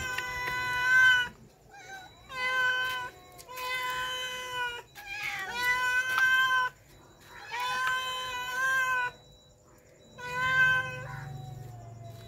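Street cats meowing for food: a series of about six long, drawn-out meows, each about a second long, with short pauses between them.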